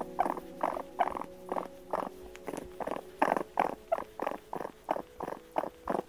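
Raccoon giving a quick series of short purring calls, about three a second.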